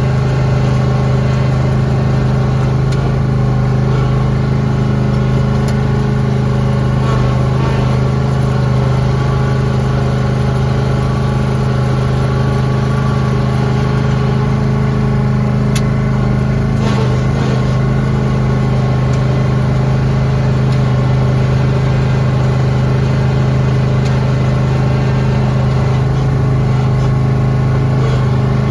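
Lawn tractor engine running at a steady speed while plowing snow, a constant even drone with a few faint ticks about halfway through.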